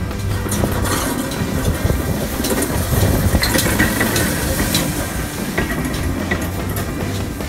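Steam tank locomotive and its coaches rolling slowly past at the platform. Its wheels click over the rail joints over a steady rumble and hiss.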